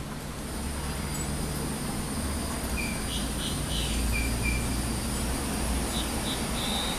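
Outdoor ambience: a steady high insect drone with several short bird chirps between about three and six and a half seconds in, over a low rumble.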